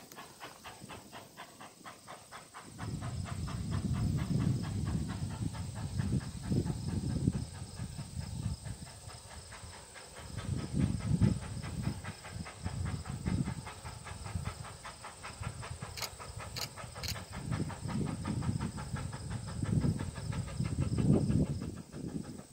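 A two-foot narrow-gauge steam locomotive working in the distance: a steady, fast beat of exhaust chuffs with steam hiss, over uneven swelling low rumbles. Three short high clicks come about two-thirds of the way through.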